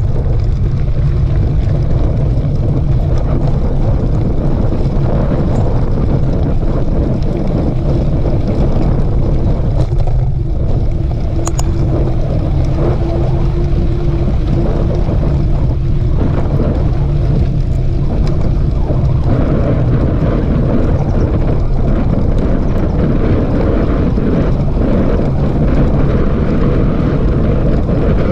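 Loud, steady wind rumble buffeting the microphone of a camera riding along on a mountain bike, with the bike and trail noise underneath.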